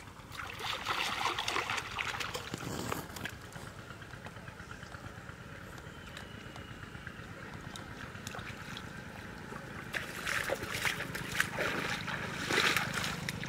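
Shallow pond water splashing and sloshing in two spells, about a second in and again from about ten seconds in; the later one is someone wading through the water.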